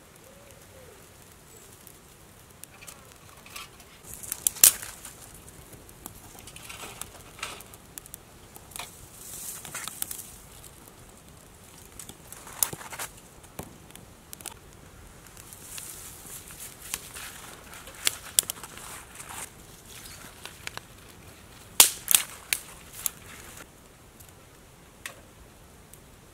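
Dry twigs and kindling burning in a small titanium wood-burning stove: irregular crackling with sharp pops and short rushing hisses of flame. The loudest pops come about four seconds in and as a quick cluster near the end.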